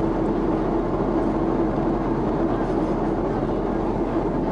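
Steady cabin noise of a Boeing 777-300ER airliner in cruise: an even rush of engine and airflow noise with a constant low hum.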